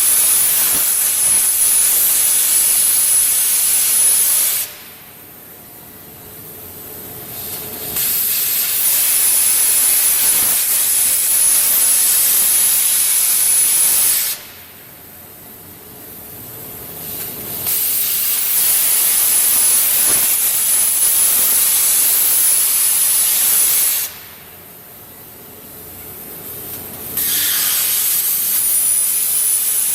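Robot-guided plasma cutting torch cutting weld bevels: a loud steady hiss with a thin high whine. It runs in stretches of about six seconds, and drops away three times for quieter gaps of about three seconds between cuts.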